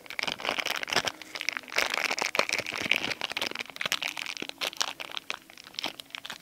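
Plastic packaging crinkling and crackling in the hands, with many sharp clicks and crunches, as a small toy is unwrapped.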